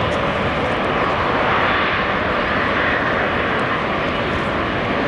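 Jet airliner's engines at takeoff power during the takeoff roll, heard from a distance as a steady rushing noise that swells slightly about two seconds in.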